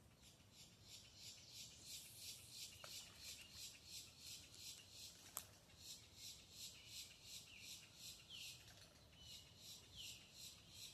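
Faint outdoor wildlife sounds: a high-pitched call pulsing evenly about three times a second, with a few short bird chirps and one light click about halfway through.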